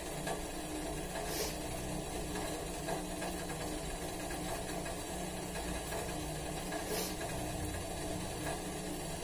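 Steady low hum and hiss, with faint occasional scrapes of a kitchen knife peeling a piece of ginger root, two of them about a second and a half in and about seven seconds in.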